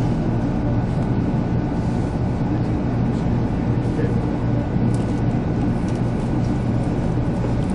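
JR 300 series Shinkansen pulling away from a station, heard inside the passenger cabin as a steady low rumble.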